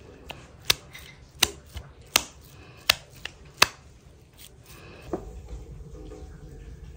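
Raw ground meat being slapped from hand to hand to press it into a burger patty: a run of about seven sharp, wet slaps, roughly one every three-quarters of a second, ending just under four seconds in. A softer thump follows about five seconds in, then a low steady background.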